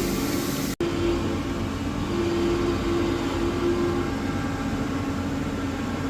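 CNC milling machine cutting grooves in hardened steel of 58 HRC with a 4 mm end mill: a steady machining hum with a held tone that comes and goes. The sound drops out for an instant about a second in.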